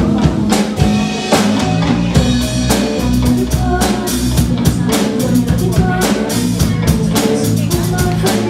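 Background music with a drum kit keeping a steady beat over a bass line.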